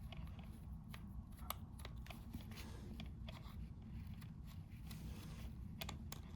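Faint, irregular clicks and scrapes of a small screwdriver working a screw out of a Sennheiser HD 280 headphone's plastic housing, over a steady low hum.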